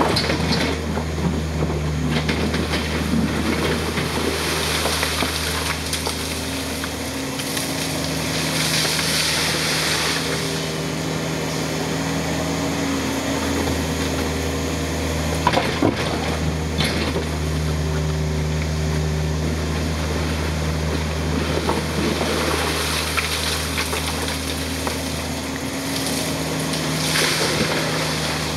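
Yanmar ViO55 mini excavator's diesel engine running steadily as it digs and swings with a ditching bucket, the engine note dipping briefly a few times. There are a few sharp knocks about halfway through.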